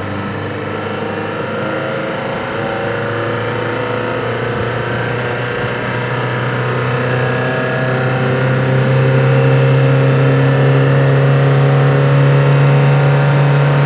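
Ford car's engine heard from inside the cabin, pulling hard in third gear under full acceleration. Its steady drone rises slowly in pitch and grows louder as speed builds.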